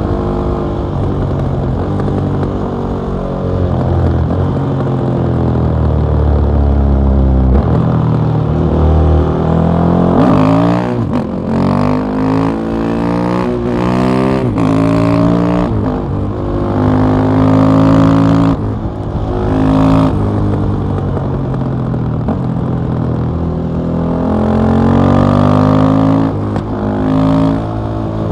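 KTM 660 SMC supermoto's single-cylinder engine through an Akrapovic exhaust, ridden hard: the engine note repeatedly climbs under acceleration, then drops back with short breaks at the gear changes.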